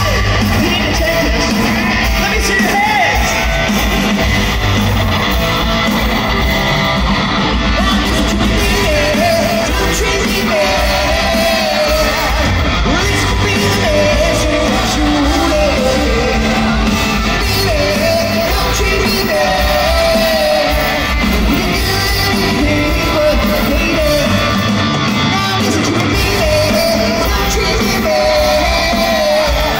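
A rock band playing live, a singer's voice over electric guitars and drums, heard from the audience in a large hall.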